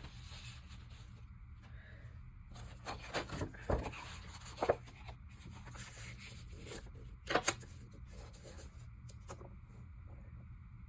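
Sheets of cardstock being handled and positioned: soft paper rustling and sliding with a few light taps, the loudest a quick double tap about seven seconds in.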